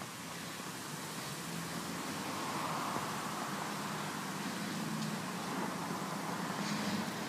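The engine of a 1938 American LaFrance fire engine running with a low steady hum under a rushing noise, growing gradually louder.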